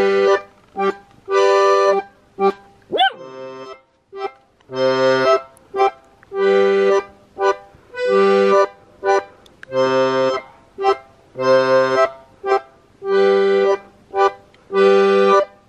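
Piano accordion (a Scandalli) played in a steady rhythm: short, detached chords over bass notes, with a strong chord about every second and a half.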